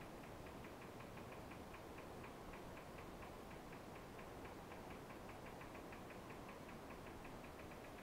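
Faint, steady, rapid ticking, about five ticks a second, over a low room hum.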